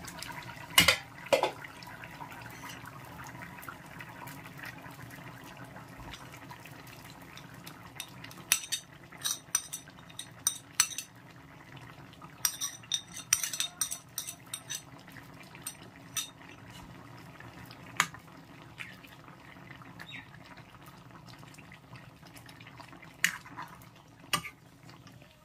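An aluminium lid clanks twice against a metal karahi as it is lifted off, about a second in. Then a metal ladle scrapes and taps against the pan in bursts while stirring a simmering fish and cauliflower curry, with a few single knocks near the end.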